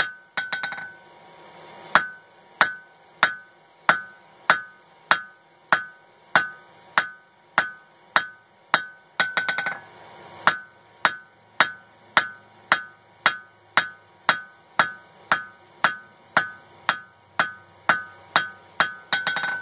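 Blacksmith's hand hammer striking red-hot coil-spring steel on an anvil in a steady rhythm of about one and a half blows a second, each blow with a short metallic ring. The steel is being drawn out and its end flared to shape a rounded slot punch.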